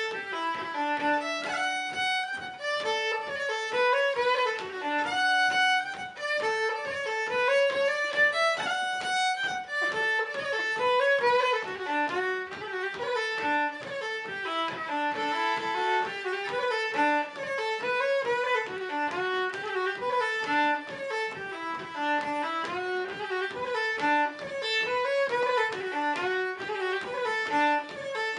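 Solo fiddle playing a traditional polka: one bowed melody line of quick, short notes in a steady dance rhythm.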